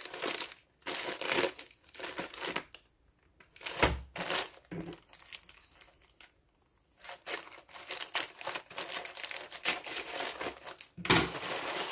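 Plastic shipping mailer crinkling and rustling as it is handled and cut open with scissors, in irregular bursts with a couple of short pauses.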